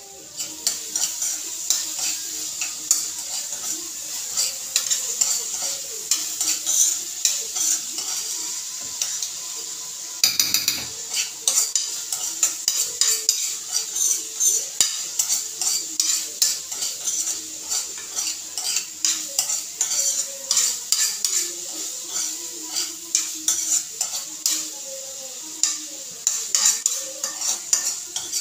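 Diced food sizzling as it is stir-fried in a frying pan, with a utensil scraping and tapping against the pan in quick, uneven clicks. There is a brief louder rush of noise about ten seconds in.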